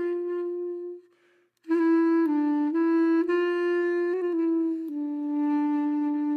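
Background music: a slow solo melody of long held notes that step from one pitch to the next, breaking off briefly about a second in before going on.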